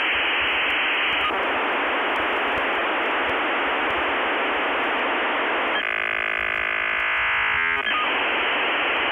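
Steady radio-style static hiss, narrow like a transmission channel. Past the middle, a buzzing tone of several pitches replaces the hiss for about two seconds, then the hiss returns.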